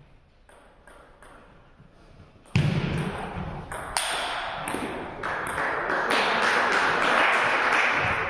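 Table tennis ball clicking off bats and table in a fast rally that starts sharply about two and a half seconds in, after a few light bounces. Near the end a swell of clapping and crowd noise follows the won point.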